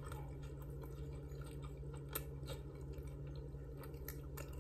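A person chewing a mouthful of chicken sandwich, with faint mouth clicks every second or so over a steady low hum.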